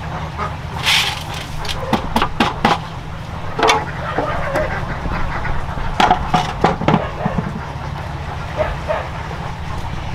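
Knocks and clatter of a corrugated sheet being handled and laid as a lid on a galvanized metal feed bin, in several bursts, the busiest about six to seven seconds in, over a steady low rumble.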